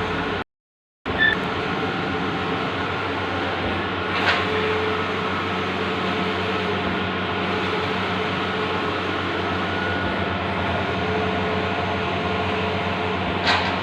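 Bluewin large-format outdoor printer running with a steady mechanical hum and hiss. The sound drops out for half a second just after the start, and there are two brief knocks, about four seconds in and near the end.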